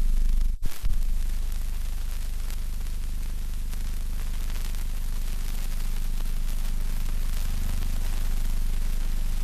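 Steady mains hum with a constant hiss, the noise of an otherwise silent old film soundtrack. About half a second in the sound drops out briefly and comes back with a few clicks.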